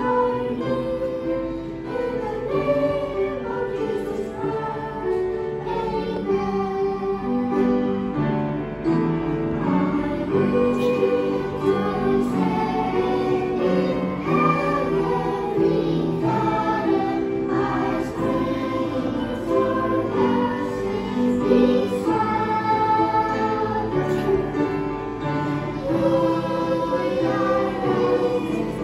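Children's choir singing a Christian prayer song together, in a continuous sung melody.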